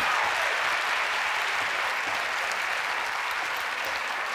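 Studio audience applauding, the clapping slowly dying down.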